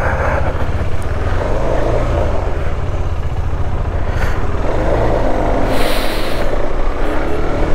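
KTM 390 Adventure's single-cylinder engine running as the motorcycle pulls away and slowly picks up speed, with a brief hiss about six seconds in.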